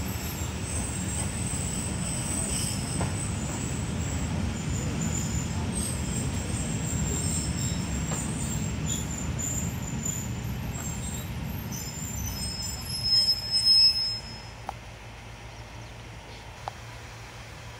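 Road noise heard from inside a moving car: a steady low rumble with scattered thin high squeaks. About 13 seconds in comes the loudest moment, a brief high squeal, after which the rumble drops much quieter.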